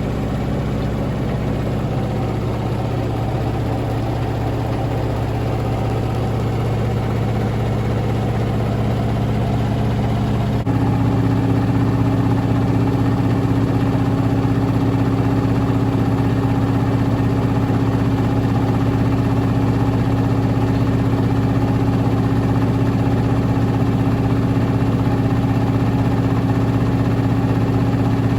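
Hotpoint Ultima WT960 washing machine in its final spin with a very unbalanced load, the drum motor running with a steady whine. About ten seconds in it steps up suddenly to a higher, louder pitch and holds there.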